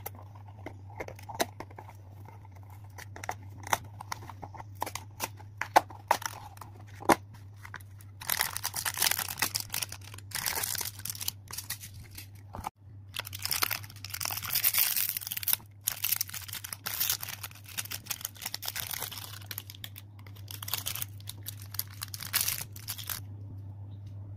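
Clicks and taps from a cardboard snack box being handled and opened, then bursts of crinkling from plastic candy wrappers being taken out and handled, starting about a third of the way in.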